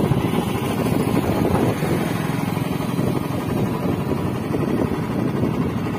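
Motorcycle engine running steadily as the bike cruises.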